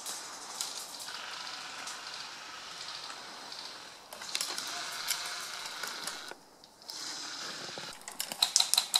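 Rustling and crackling of dry leaves and twigs in woodland undergrowth, with scattered clicks. Near the end comes a quick run of sharp clicks.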